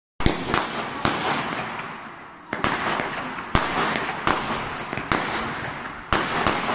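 Fireworks going off: a string of sharp bangs, about one a second, each trailing off into a fading crackling hiss.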